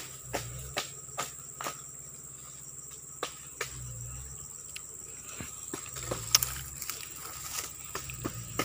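Steady high-pitched drone of insects such as crickets, with a run of sharp clicks and crackles over it, several a second at first and then scattered, the loudest a little past six seconds in.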